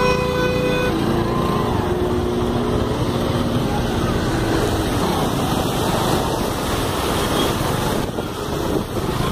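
Road traffic running with a steady rush of engine noise. A vehicle horn is held for about the first second.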